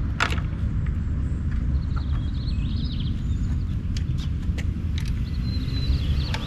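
Clicks and knocks from the Hiboy S2R Plus electric scooter's folding stem as it is raised upright and locked at the fold, several sharp ones spread through, over a steady low outdoor rumble.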